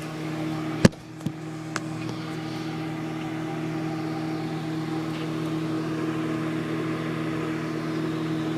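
Microwave oven running with a steady hum, heating a bowl of chocolate to melt it. A sharp click comes just under a second in, with two lighter clicks soon after.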